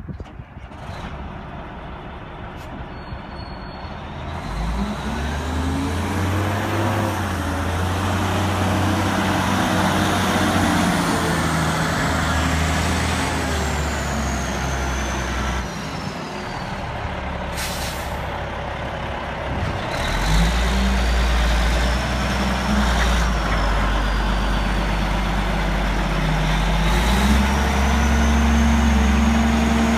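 Caterpillar 980C wheel loader's diesel engine running and revving as the machine drives, getting louder a few seconds in and rising and falling in pitch twice, with a high whine above it. A few brief hissing bursts break in, the clearest about halfway through.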